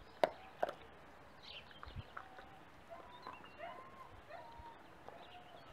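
Dogs gnawing raw meaty bones, with two sharp cracks of bone in the first second and quieter chewing after. Short bird chirps sound faintly in the background later on.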